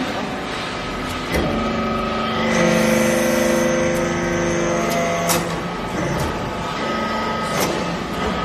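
Hydraulic metal chip baler running: a steady hum from its hydraulic pump, with pitches that shift as the press works, and a few sharp clanks.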